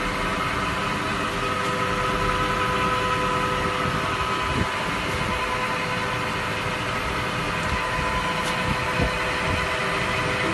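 DL 340 x 700 lathe converted to CNC, running steadily with a constant machine hum and a steady whine, and two light knocks, one about halfway through and one near the end.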